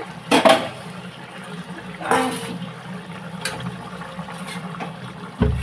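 A ladle scooping aloo paneer curry out of a kadhai, the thin gravy sloshing and splashing in a few short bursts over a steady low hum. A dull thump comes near the end.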